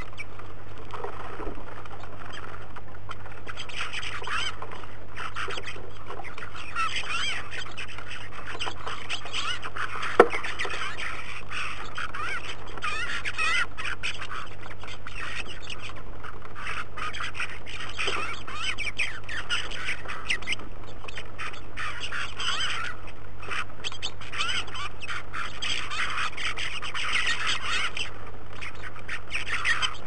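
A feeding flock of bramblings calling and chattering nonstop at a seed feeder, with many overlapping harsh calls. One sharp knock comes about a third of the way in, over a steady low electrical hum.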